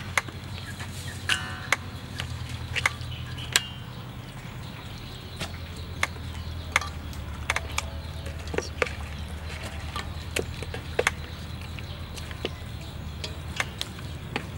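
Scattered small clicks and wet taps as marinated quail pieces are handled and laid onto a steel tray, over a steady low hum.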